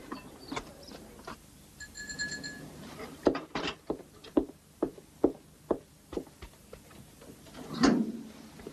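A bell rings briefly about two seconds in, followed by a run of sharp knocks at about two a second, and near the end the clunk of a kitchen oven door being pulled open.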